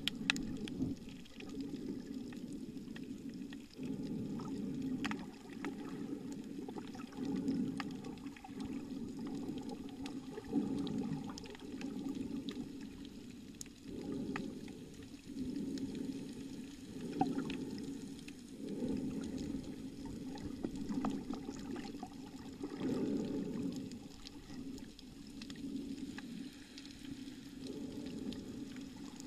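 Muffled underwater water noise recorded with the camera submerged, swelling and fading irregularly every second or two, with scattered faint clicks.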